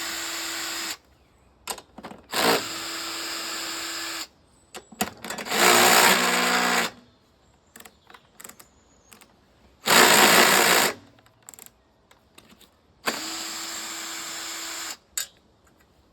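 A power drill running in five short bursts of one to two seconds each, with small clicks and handling rattles between them. It is backing out the bolts that hold the lawnmower's pull-starter housing.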